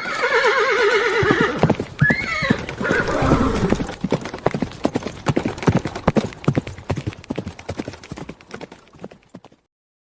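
A horse whinnying, a loud call with a shaky, falling pitch lasting about a second and a half, then a short second call. Its hooves then clip-clop in a long run that gradually fades away.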